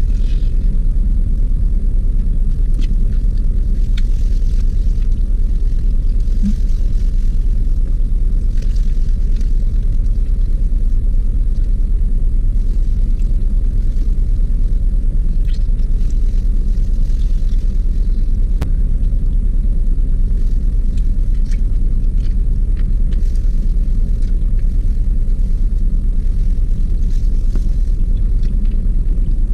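Steady low rumble of a car idling, heard inside the cabin, with a few faint clicks and rustles of eating with a plastic-gloved hand.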